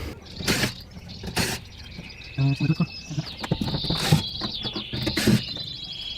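Small birds singing, a continuous high twittering warble that starts about two seconds in. Several sharp clicks and knocks sound over it, the clearest about half a second in, at one and a half seconds, and twice more near four and five seconds.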